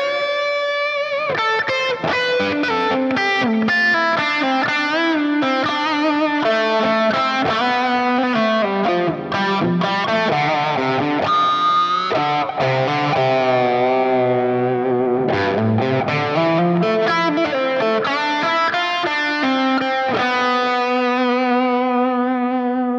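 Electric guitar on its bridge humbucker through the Axe-Fx III's FAS Express amp model, lightly overdriven, playing a melodic lead with bends and vibrato. Near the end a chord is held and rings out with long sustain.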